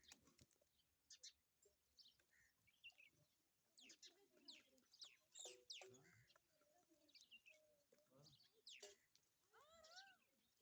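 Birds chirping: many short, high chirps at irregular intervals. Near the end, a single short animal call that rises and falls in pitch.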